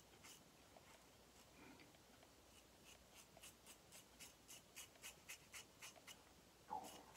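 Yaqi Katana safety razor with a Bic double-edge blade scraping through stubble against the grain: faint, short scratchy strokes that become quick and regular, about four or five a second, from a few seconds in.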